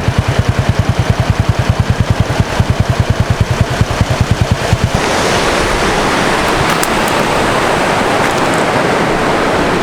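Strong wind on the microphone by the sea: for about five seconds a fast, even low pulsing, then it changes suddenly to an even rushing noise.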